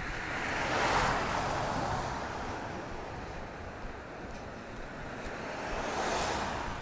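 Two cars passing, one after another: tyre and road noise swells and fades, the first peaking about a second in and the second near the end.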